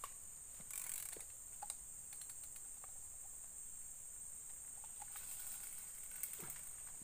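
Steady high-pitched drone of insects, with scattered light clicks from a spinning rod and reel being handled and a short swish about a second in.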